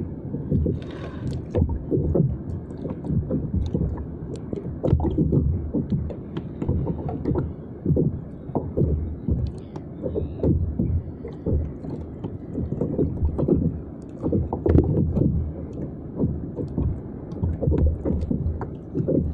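Water slapping and sloshing against a fishing kayak's hull in an irregular run of low thumps.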